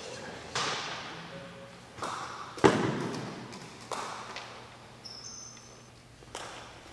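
A few separate sharp knocks and thuds, each ringing on with a long echo in a large indoor sports hall. The loudest comes a little over two and a half seconds in.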